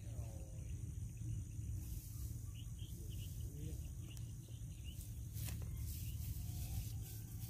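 Steady high-pitched insect chirring over a low steady rumble. A few faint short chirps come around the middle, and a single sharp click about five and a half seconds in.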